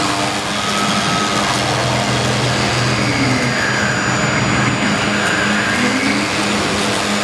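HG-1325 CNC router's spindle running as its bit cuts through a block of polyfoam, a steady machine hiss. Over it, the axis drive motors whine in pitch that rises and falls as the head speeds up and slows along the cut.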